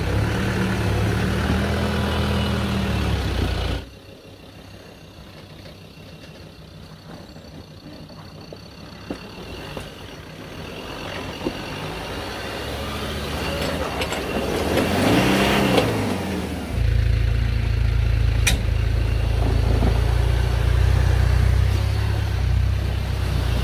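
4x4 off-road SUVs' engines running as they crawl through a rutted dirt gully. Partway through, an engine revs up and down as a vehicle climbs, then runs with a loud low rumble as it passes close. One sharp knock is heard near the end.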